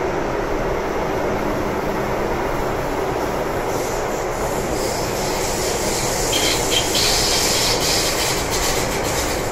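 MTR M-train (Metro-Cammell EMU) running through a tunnel, heard from inside the car: a steady rumble of wheels on rail. From about four seconds in a high hiss rises, with a brief wheel squeal around six to seven seconds, as the train nears a station.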